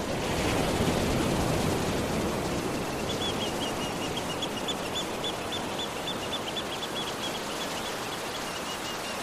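Small waves washing onto a sandy beach as a steady hiss, a little louder in the first couple of seconds. From about three seconds in, a bird calls over it in a quick run of short high chirps.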